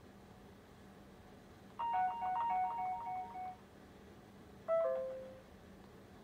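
A short electronic melody of steady beeping notes, followed about a second later by a brief falling two-note chime that fades out, over a faint steady hum.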